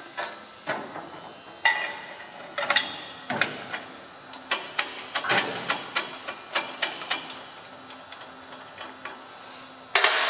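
Metal parts of a hammer union grinder being handled: sharp, irregular clicks and knocks as the hood is raised and the fixture's hex nut and plates around the clamped union nut are worked loose by hand, thickest between about four and seven seconds in. A louder, short burst of noise comes near the end.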